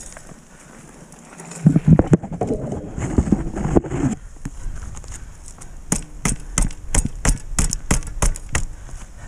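Multitool striking a bent bicycle chainring to knock it back straight, a quick run of sharp metal knocks at about three a second, starting about six seconds in. Before that, about two seconds in, there is a burst of loud clattering as the tool and bike are handled.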